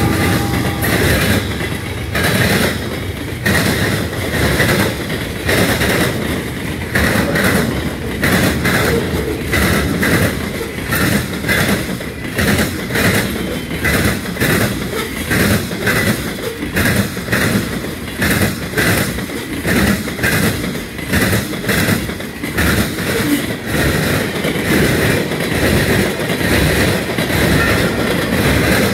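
Long freight train rolling past at speed, its freight car wheels clacking in a steady rhythm over the rail joints. A mid-train CSX diesel locomotive passes at the start.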